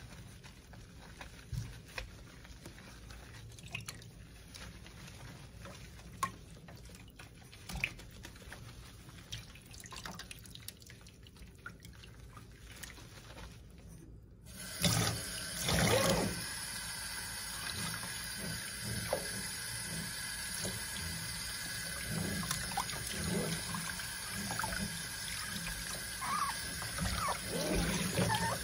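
Small wet splashes and handling sounds as a puppy is lathered in a stainless steel sink; about halfway through, the kitchen tap comes on and water runs steadily into the sink as the puppy is rinsed.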